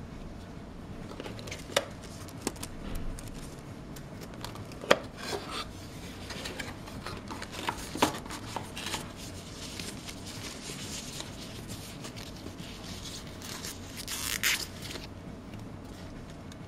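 Hands unpacking a camera box: paper, cardboard and plastic packaging rustling, with scattered light knocks and taps. A longer, louder rustle comes near the end.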